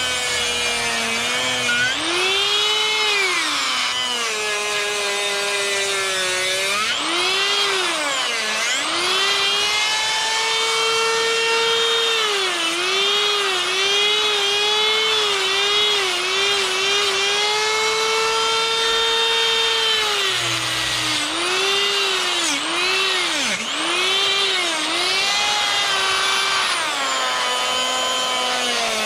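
Die grinder with a sphere burr cutting into wood, its high motor whine repeatedly sagging in pitch as the burr bites and climbing back as it is eased off.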